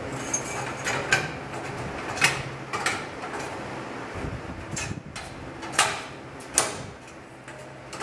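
Bicycle steering tube being pushed and worked through the head tube and headset bearings, with scattered metallic clicks and knocks, the two loudest in the second half. It is catching on a weld bead poking out inside the head tube.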